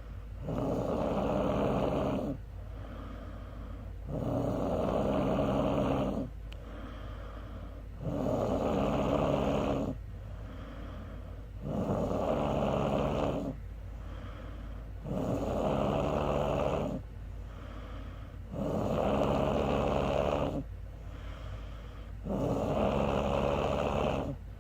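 A woman snoring loudly in her sleep: seven long snores, each about two seconds, coming about every three and a half seconds, with quieter stretches between.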